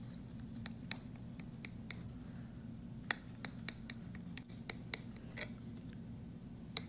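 Kitchen knife cutting a soft baked bar on a plate: a string of short, sharp, irregular clicks and scrapes as the blade meets the plate, over a low steady hum.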